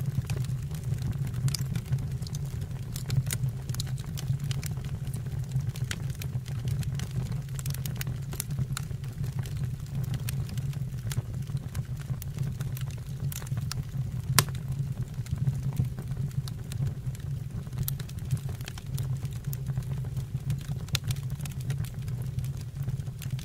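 Fire burning in a fireplace: scattered sharp crackles and pops over a steady low rumble.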